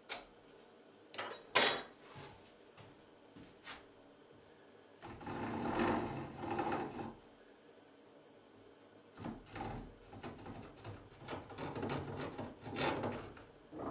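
Handsaw sawing down into the end of an upright pine board. There are a few light clicks as the saw is set on the board, then a couple of sawing strokes about five to seven seconds in, and a run of shorter, quicker strokes near the end.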